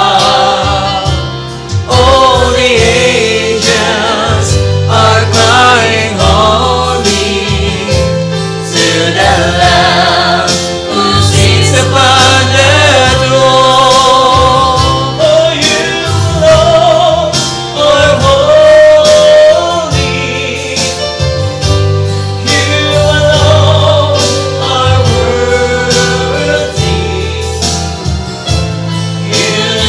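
Worship band playing a praise song, with singers' voices over bass and a steady drum beat.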